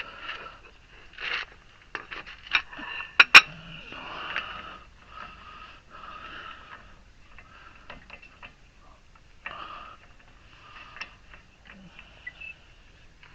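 Hand tools working on a car's wheel hub: scattered sharp metallic clinks and knocks with short scraping sounds, the loudest clink a little over three seconds in.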